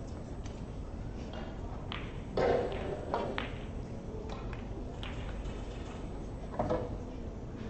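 Sharp clicks and knocks of snooker balls and cue in a large, quiet hall, a handful of separate strikes with the loudest about two and a half seconds in.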